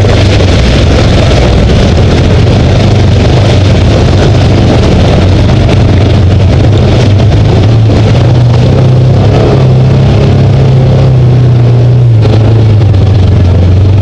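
Polaris side-by-side UTV engine running steadily under load while driving along a dirt trail. Its pitch rises a little partway through, then drops back near the end.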